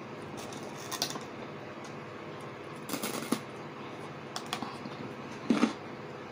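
Small eating noises: a few scattered clicks and crackles as rye toast is torn and a spoon taps and scrapes an enamel pan, the loudest a little over five seconds in, over a faint steady hum.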